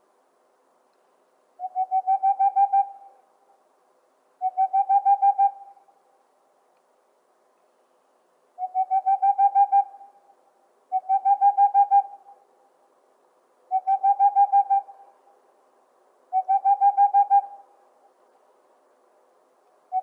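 Boreal owl giving its staccato song: short trills of about a dozen rapid hoots, each trill about a second long and growing louder as it goes. Six trills repeat every few seconds, and a seventh begins right at the end.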